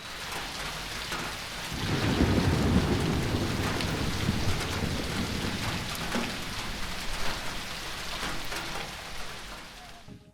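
Heavy rain with a roll of thunder that swells about two seconds in and rumbles away slowly; the storm cuts off suddenly at the end.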